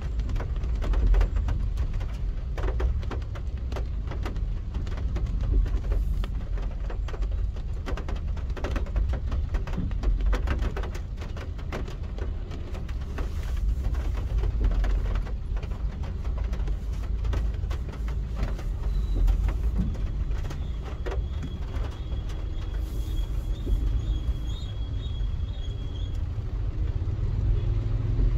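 A car driving through traffic in the rain: a steady low road rumble with many short ticks scattered throughout, typical of raindrops striking the car. A thin, high steady tone sounds for several seconds in the latter part.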